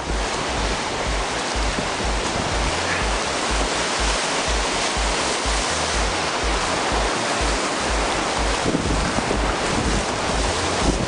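Whitewater rapids rushing loudly and steadily around an open canoe, a big-volume river running at about 220 cubic metres per second, with wind on the microphone.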